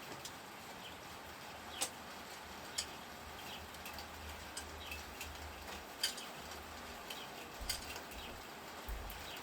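Thrown no-spin screwdrivers striking the target: several sharp knocks a second or more apart, the clearest about two, three, six and eight seconds in. Birds chirp faintly in the background.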